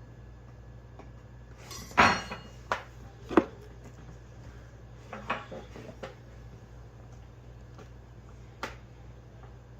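A handful of sharp knocks and clatters from handling and opening a sealed trading-card hobby box, loudest about two seconds in, with smaller taps spread through the rest.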